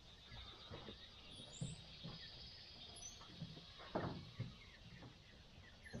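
Faint calls of Cornish Cross meat chickens, with a few high chirps and one short louder sound about four seconds in.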